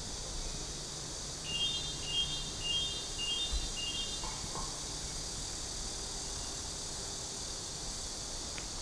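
Outdoor street ambience with a steady high hiss. From about one and a half to four seconds in, a short run of high, repeated chirps sounds, about two a second.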